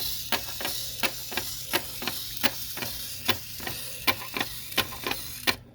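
Regular ticking, about three sharp clicks a second over a steady hiss, stopping abruptly near the end.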